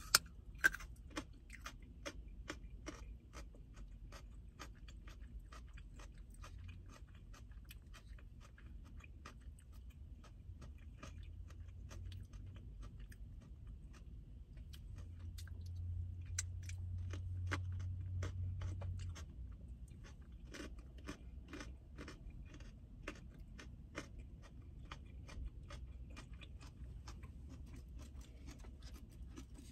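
Raw carrot sticks being chewed close to the microphone: a long run of small, crisp crunches. A low hum swells for a few seconds a little past the middle.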